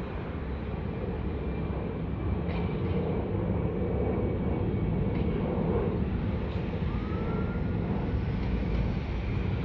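Steady road and engine rumble of a car driving, with a faint rising squeal about seven seconds in.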